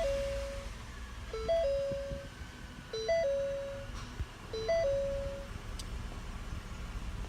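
Ford Flex's dashboard warning chime, sounding four times about every one and a half seconds: each time a short low note, a short higher note, then a longer middle note.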